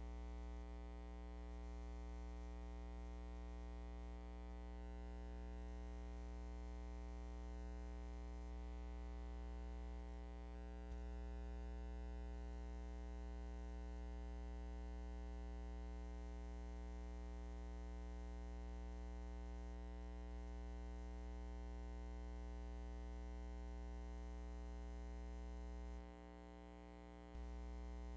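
Steady electrical hum with a thin buzz of many overtones and faint hiss, dipping briefly near the end; no other sound over it.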